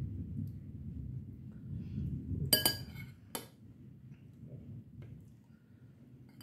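A metal spoon clinks twice against a bowl of ice cream, about a second apart, each strike ringing briefly.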